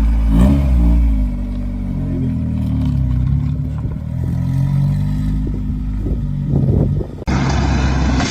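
An engine running and revving, its pitch rising and falling. About seven seconds in it cuts abruptly to a different, hissier steady sound.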